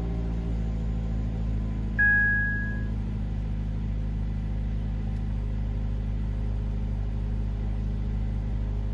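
2.4L MultiAir four-cylinder engine of a 2017 Jeep Compass idling steadily just after start-up, running on a newly replaced camshaft position sensor connector, which is meant to cure a P0344 code. A short electronic beep sounds about two seconds in.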